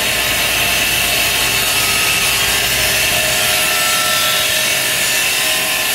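Metal-cutting saw running through aluminium bar stock: a steady, loud, high-pitched cutting noise that holds unchanged throughout.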